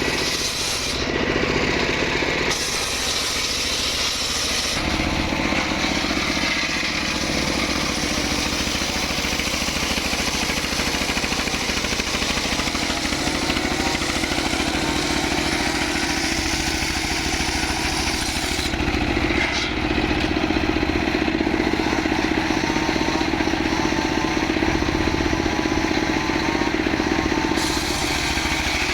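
Engine-powered wood saw running continuously, its pitch holding steady with shifts in tone about five seconds in and again near nineteen seconds.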